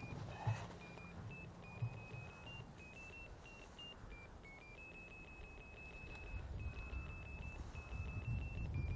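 Ferret locator receiver sounding a thin, high electronic tone that breaks and steps slightly up and down in pitch as it picks up a collared ferret underground. Two sharp knocks in the first two seconds, and low rumbling handling noise that grows toward the end.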